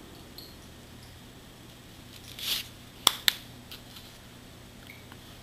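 Small handling noises at a hobby worktable: a brief rustle about two and a half seconds in, then two sharp clicks in quick succession as small hard objects are handled or set down.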